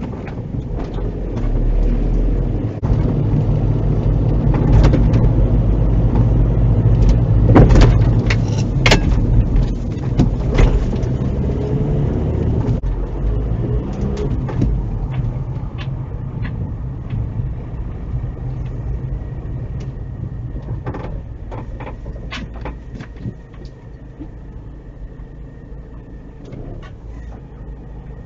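Car cabin noise picked up by a dash cam: engine and tyre rumble with scattered knocks and clicks. It grows quieter in the second half as the car slows to walking pace and stops.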